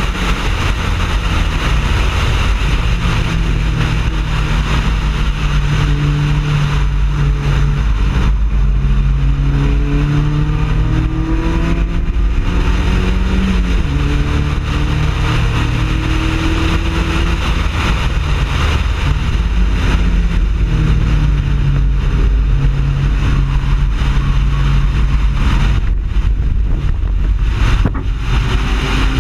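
Mazda Miata race car's four-cylinder engine at race pace, heard from the cockpit with road and wind noise. The engine pitch climbs through upshifts in the middle and drops as the driver lifts off near the end.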